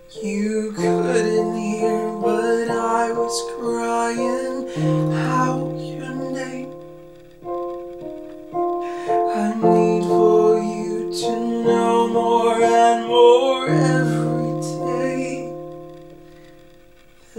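Digital piano played in slow, sustained chords, with a man singing over it; the last chord fades away near the end.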